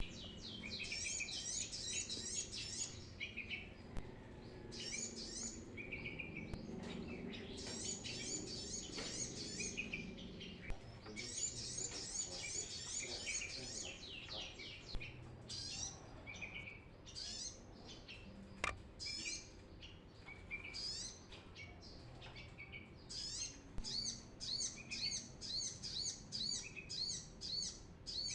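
Brown-throated sunbird singing: rapid, high trilling chirps in bouts of a few seconds, then scattered single notes, then a run of quick repeated chirps near the end.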